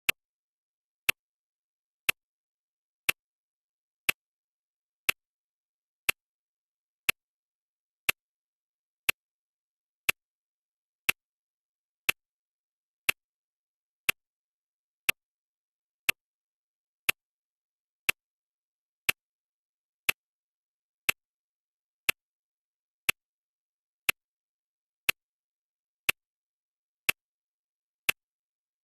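Clock ticking, one sharp tick a second with silence between.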